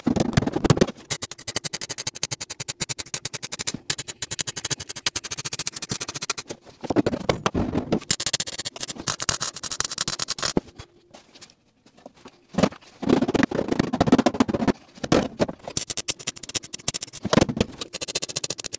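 MIG welder arc crackling as it welds a steel floor panel into the truck's floor, in bursts of a few seconds with short breaks between welds and one longer pause a little after the middle.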